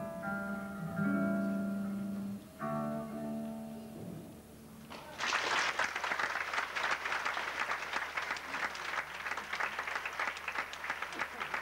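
Acoustic guitar playing its last chords, which ring out and fade about four seconds in. An audience then breaks into applause that carries on to the end.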